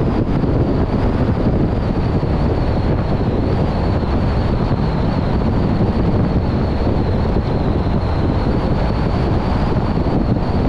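Steady road and wind noise from a car driving at highway speed, a continuous rushing with a faint high whine running through it.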